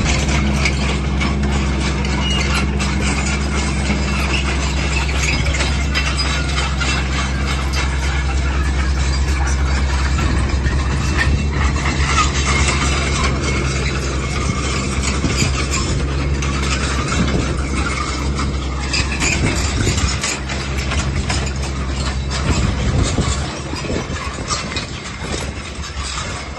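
Kubota KX155-3SZ tracked excavator's diesel engine running steadily, with intermittent mechanical squeaks and clatter from the machine as it works.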